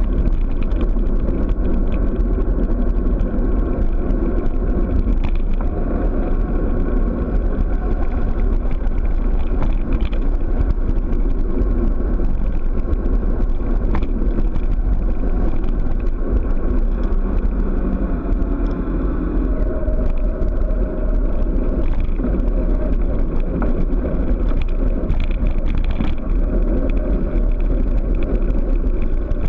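Steady wind buffeting on the microphone of a handlebar-mounted camera, with tyre rumble on asphalt, from a bicycle descending a mountain road at speed.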